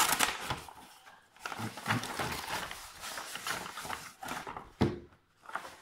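Brown kraft-paper mailing envelope being torn and rustled open by hand while a boxed screwdriver set is pulled out. It is loudest at the very start, with scattered crinkling after and a brief sharp sound about five seconds in.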